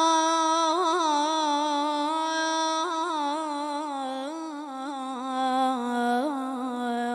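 A boy's solo singing voice holding one long, ornamented note with quick trills and turns, its pitch sliding slowly lower.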